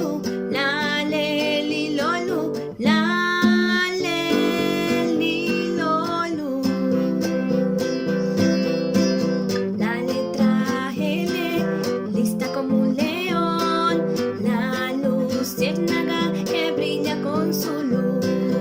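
Instrumental passage of a children's song, with acoustic guitar and a melody over a steady bass line, and no lyrics sung.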